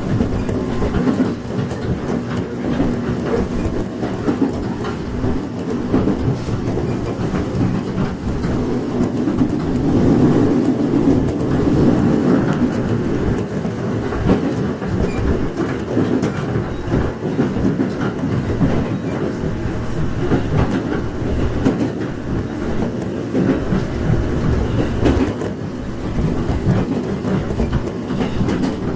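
A 415 series 1500-subseries electric multiple unit running, heard inside the passenger car: a steady rumble of wheels on rail with a clickety-clack of rail joints. The rumble swells a little about ten seconds in.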